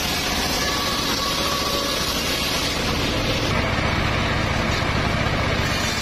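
Homemade engine-driven circular sawmill running steadily, its large saw blade spinning.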